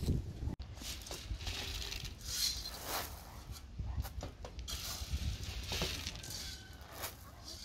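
Grain scattered from a scoop pattering onto a dirt farmyard in several crackly bursts, over a low steady rumble.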